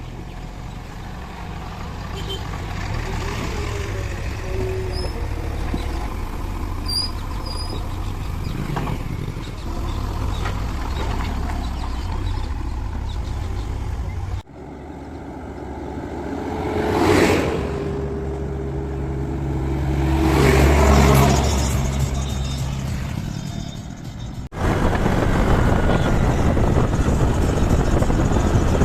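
Diesel engines of JCB 3DX backhoe loaders running at work, in three clips cut together. The engine note swells twice in the middle clip, as under revving or load.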